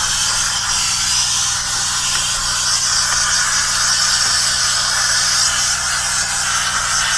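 Steam cleaner nozzle jetting steam over a truck's dashboard and instrument panel: a steady hiss, with a steady low hum underneath.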